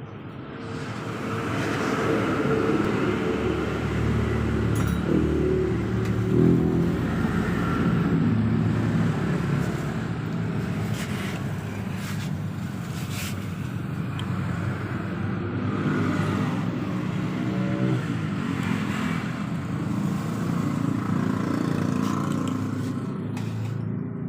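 A motor vehicle engine running, its pitch rising and falling unevenly, with a few sharp clicks or knocks about halfway through.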